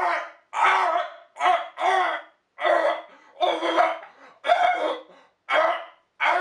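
A person's voice in a rapid string of short, loud, pitched outbursts, about one a second, each cut off by a brief gap.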